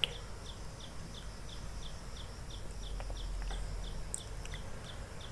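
A short high chirp repeating evenly about three times a second, from a bird or insect, over a low steady hum. A sharp click at the start and a few light clicks in the middle come from hands working wires around a ceiling-fan stator.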